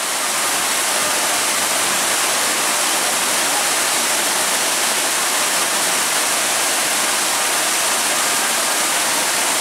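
Man-made theme-park waterfall running again, water pouring down in a steady, even rush.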